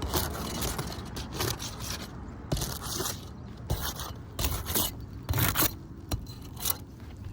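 Asphalt roof shingles scraping and crackling as a tool works under them, in a series of irregular strokes as the sealed-down shingles are pried loose.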